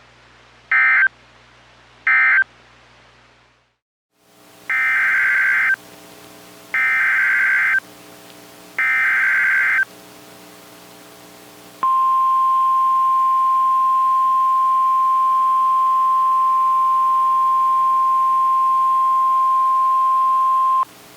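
Emergency alert data signals from a NOAA Weather Radio broadcast. First come the last two short buzzing bursts of the previous alert's end-of-message code. After a brief pause come three one-second bursts of SAME digital header data for the next alert. Then a steady single-pitch 1050 Hz Weather Radio warning alarm tone sounds for about nine seconds and cuts off.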